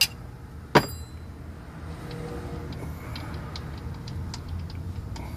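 Metal clinks at a car's oil pan drain plug as it is loosened with a wrench and turned out by hand: a sharp click at the start, a louder clack under a second in, then a run of light irregular ticks.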